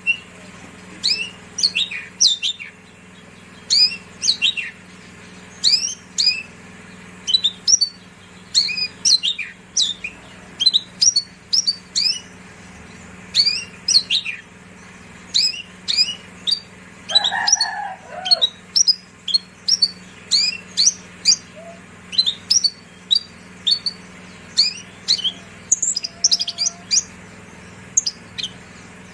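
Australasian bushlark (branjangan) singing: repeated clusters of quick, high, sweeping chirps, one cluster every second or two, over a faint steady hum.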